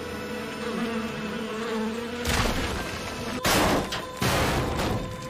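Animated sound effects: a steady buzzing drone, then, from about two seconds in, three or four loud gritty surges like rubble and dust being shifted.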